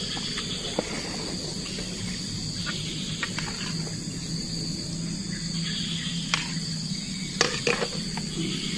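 Steady high-pitched chorus of insects, with a few short clicks and light knocks scattered through it, a cluster of them near the end.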